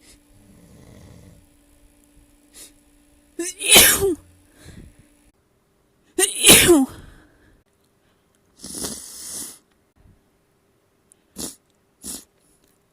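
A person sneezing: a quiet breathy build-up, then two loud sneezes about three seconds apart, each ending in a voiced cry that falls in pitch. A shorter breathy sound and two brief sniffs follow near the end.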